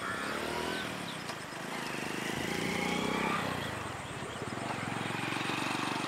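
A motor engine running, its pitch shifting up and down and loudest about halfway through, with faint bird chirps over it.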